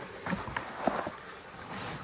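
Packaging being handled as the rifle upper is lifted out of its foam: a few soft knocks and a light rustle.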